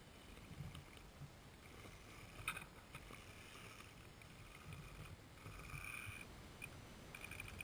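Faint sounds of a small electric RC rock crawler clambering over rocks: short bursts of motor and gear whine, the longest about five and a half seconds in, and a sharp tap about two and a half seconds in.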